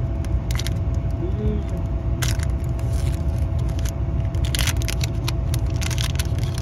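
Foil wrapper of a Pokémon card booster pack crinkling and tearing as it is pulled open by hand, then the cards rustling as they come out. Under it runs the steady low rumble of the car.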